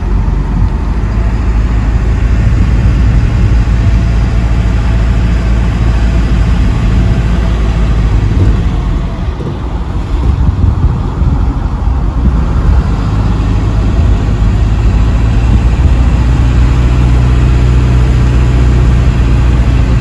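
Steady engine and road noise inside the cab of a truck driving along a winding road. The engine's drone eases briefly about halfway through, then builds again.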